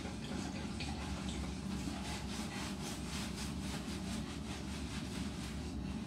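Hands scrubbing a wet Alaskan Malamute's coat with shampoo, a rhythmic rasping rub at about three to four strokes a second that grows stronger about two seconds in, over a steady low hum.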